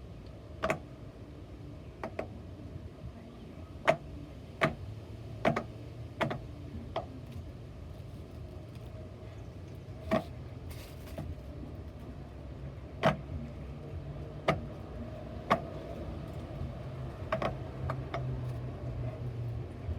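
Pop-it fidget toy having its bubbles pressed one at a time: about fourteen short, sharp pops at an uneven pace, some in quick pairs, over a steady low hum.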